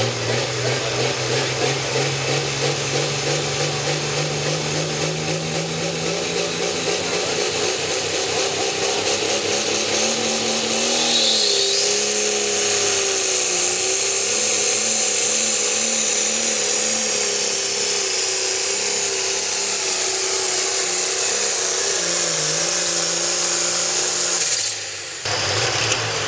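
Limited Pro Stock pulling tractor's turbocharged diesel engine running and building revs. About eleven seconds in, a high turbocharger whine rises and holds at a steady high pitch, then the sound breaks off suddenly near the end.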